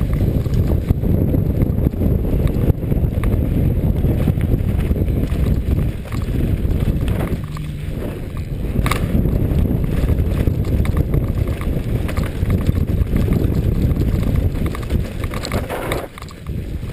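Wind rumbling on a helmet-mounted camera's microphone over the rattle and clatter of a downhill mountain bike on a rough dirt and rock trail, with a sharp knock about nine seconds in.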